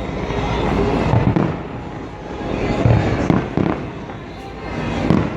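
Aerial fireworks shells bursting overhead: a run of about five booms, some close together, each followed by a rolling echo.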